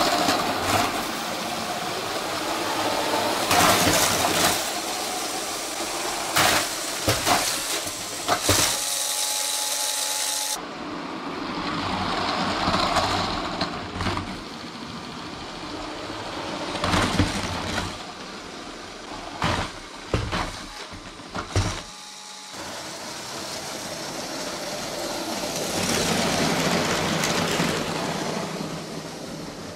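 A motorised LEGO model train running over plastic track, its small electric motor whirring and its wheels clicking over the track joints and switches. Several sharp plastic clacks stand out along the way, and the sound cuts abruptly twice.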